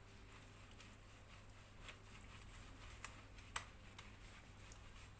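Near silence, with a few faint sharp clicks a little past halfway through.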